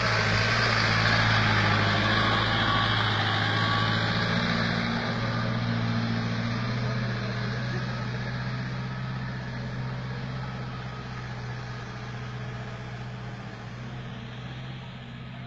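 Pickup truck engine running steadily under load as it climbs a steep dirt track, a low even hum with a noisy edge, fading gradually as the truck pulls away.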